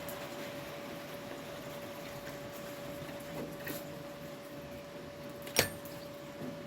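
A steady electrical hum in a workshop, with a few light taps and one sharp metallic click near the end.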